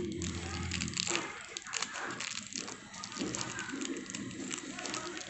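Plastic packaging crinkling and crackling as a coiled microphone cable is handled and untangled, a dense run of small irregular clicks.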